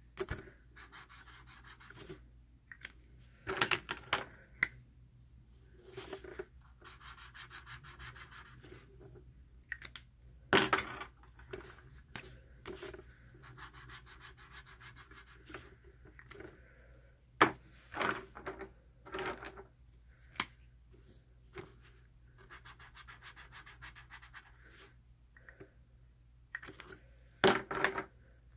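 Felt-tip marker scribbling on sketchbook paper in short scratchy patches of one to three seconds, broken by sharp clicks and knocks as the markers are handled, loudest about ten seconds in, past the middle and near the end.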